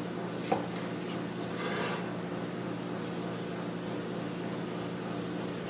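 A rag rubbing mineral oil into a walnut and maple cutting board, a soft scrubbing over a steady low hum. One sharp tap about half a second in.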